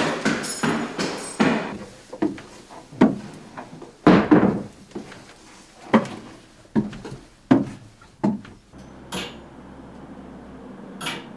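A run of irregular knocks and bangs, each with a short ring-out, then a low steady hum with two brief clicks in the last few seconds.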